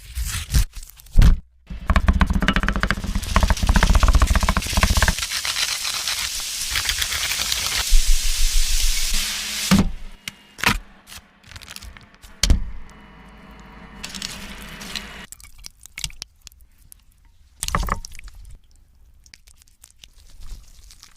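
Close-miked eating sounds: a long stretch of dense crackling and crunching, then scattered sharp clicks and smacks with quieter rustling.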